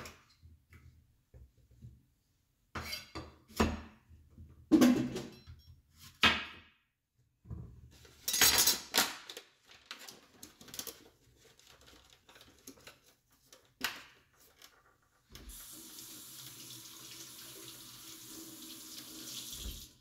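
Knife and vegetables knocking and clattering on a wooden cutting board, in short scattered bursts. From about three quarters of the way in, a kitchen tap runs steadily, then shuts off near the end.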